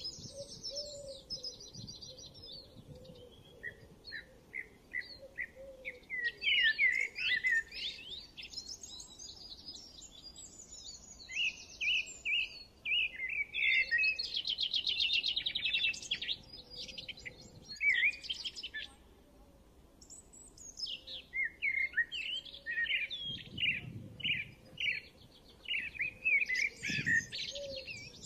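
Small birds chirping and twittering in bursts of quick, repeated notes, with short pauses between the bursts.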